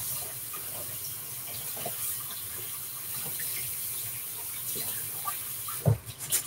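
Cold water running from a kitchen tap over brown rice in a strainer as the rice is rinsed. About six seconds in, a single thump as the flow stops.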